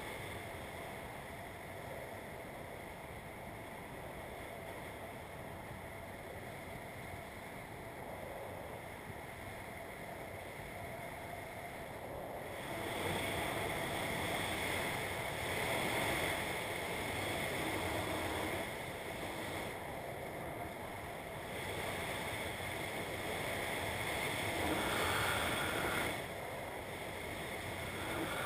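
Wind rushing over a skydiver's helmet camera during parachute canopy flight: a steady rushing noise that grows louder about halfway through and then swells and eases.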